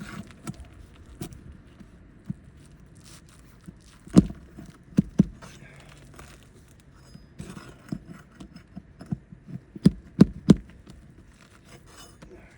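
Hand tools working a nail loose from under a roof shingle: scraping and rustling broken by sharp knocks, the loudest about four seconds in, a quick pair a second later and three more near the end.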